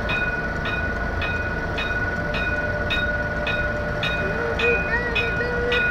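Road traffic rumble with a slow-moving tram, under an electronic beep that repeats just under twice a second and a steady high tone.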